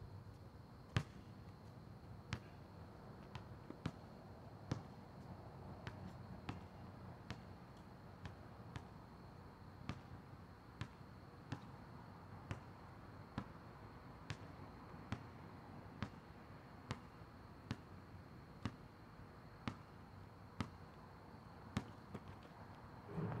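Basketball bouncing on an asphalt court in a slow, steady dribble, about one bounce a little under every second, sounding distant.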